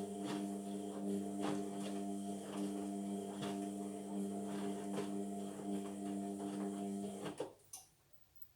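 Indesit washing machine running mid-wash: a steady mechanical hum with light, irregular knocks. The hum cuts off abruptly about seven seconds in, followed by a couple of clicks and near silence.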